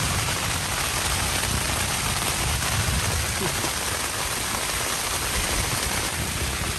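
Strong wind gusts buffeting a small tent with rain beating on its fabric, heard from inside the tent: a steady dense hiss with a low rumble underneath.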